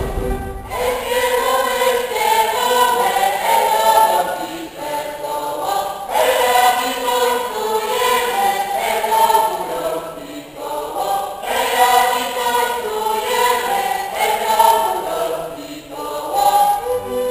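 Polish highland (góral) folk ensemble singing in chorus, men's voices at the microphones, in several long phrases with short breaks between them.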